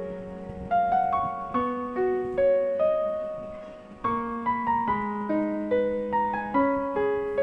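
Background piano music: a slow, gentle melody of single notes that strike and fade, with a short lull about four seconds in.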